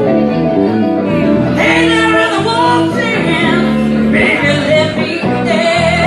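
Live band music: a woman singing into a microphone with guitar accompaniment.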